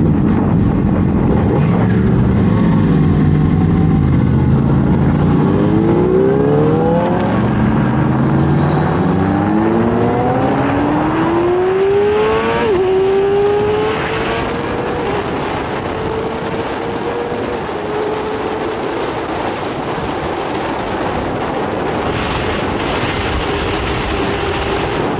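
Yamaha YZF-R6 inline-four engine accelerating, its note climbing steadily for several seconds, then dropping sharply as it shifts up about halfway through and holding a high, steady note at speed. Wind rushes past throughout.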